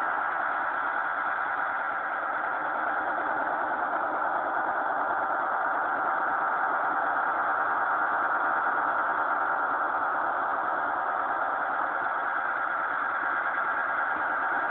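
Shortwave static from a Magnum PLL synthesized receiver's speaker, tuned to about 6.80 MHz with no station coming through: a steady rushing noise that wavers only slightly in level.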